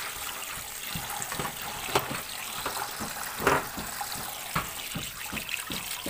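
Tap water running and splashing into a plastic colander of mushrooms as they are rinsed and rubbed by hand, with irregular sharper splashes, the loudest about halfway through.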